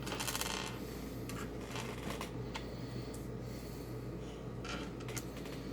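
Small packaging being handled: a brief rustle at the start, then a few scattered light clicks and taps, over a steady low hum.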